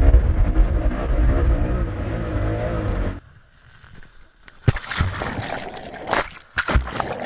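Speedboat engine running with a wavering pitch, fading over about three seconds, then cutting off suddenly. After that come water splashes and buffeting on the banana boat, with several sharp splash bursts.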